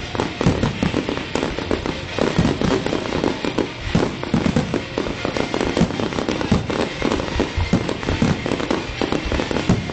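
Aerial fireworks shells bursting in rapid, overlapping succession: a continuous run of bangs and crackles with no pauses, picked up by a phone's microphone.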